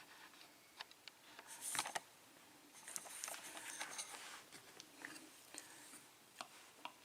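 Small metal parts of a euro pin-tumbler lock cylinder being handled during disassembly: scattered faint clicks and taps, with a brief louder scrape about a second and a half in.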